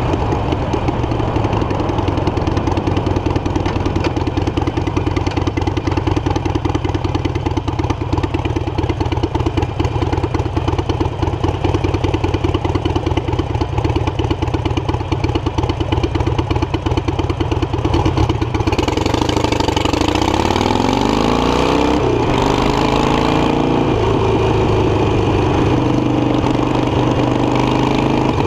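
Harley-Davidson Iron 883 Sportster's V-twin engine, with an aftermarket exhaust, running at low, steady revs with a pulsing beat. About two-thirds of the way in it revs up as the bike pulls away, the pitch rising, drops at a gear change, then rises again.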